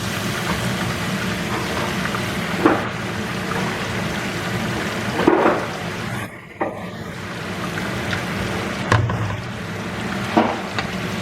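Chicken breasts sizzling in avocado oil in a pot: a steady rain-like frying hiss, with a few brief louder clatters.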